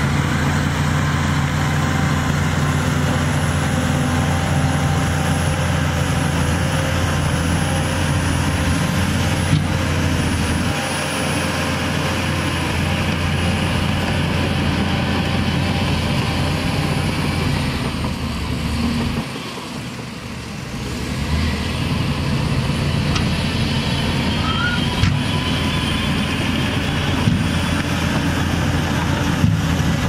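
Heavy diesel engine of a tipper dump truck running steadily while its raised bed tips a load of dirt, dipping in level for a couple of seconds about two-thirds of the way through.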